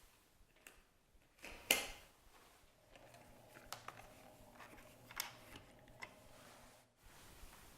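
A few sharp clicks and knocks from plastic vacuum-cleaner parts being handled, the loudest about two seconds in, over a faint steady hum.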